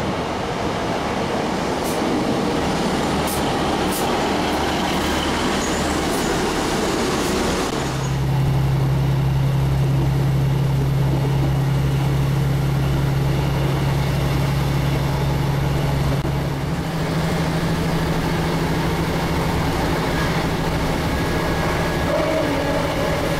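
A Sprinter diesel multiple unit running into the platform: a broad rush of wheel and engine noise with a few sharp ticks. Then, from inside the carriage, the train's underfloor diesel engine drones with a steady low hum that steps up in pitch about two-thirds of the way through.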